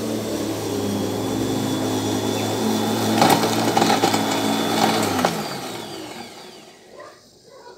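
Bosch Rotak 34 corded electric lawn mower running and cutting grass, with a few sharp ticks about three to four seconds in. About five seconds in, the motor's hum falls in pitch and fades as the blade winds down to a stop.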